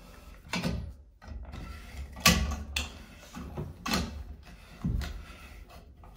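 Brushed-nickel tub spout being turned by hand onto its threaded adapter: a handful of short knocks and scrapes as it turns, the loudest about two seconds in.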